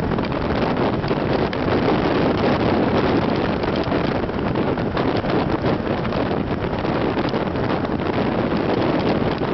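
Steady wind rushing over the microphone at road speed, with vehicle engine and road noise underneath.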